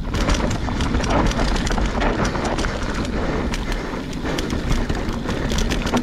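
Mountain bike descending rough singletrack: tyres crunching over dirt and roots, with frequent sharp rattles and knocks from the bike over the bumps and a steady low rumble.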